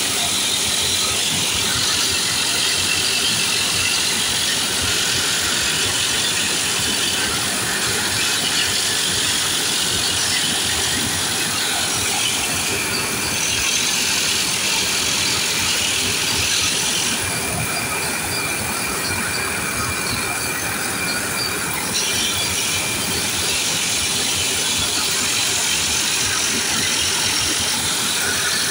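Steady hiss of a hose-fed jet gun blasting debris out of the perforated steel basket of a ship's sea chest strainer, over the constant din of engine-room machinery. The hiss drops back for a few seconds about two-thirds of the way through.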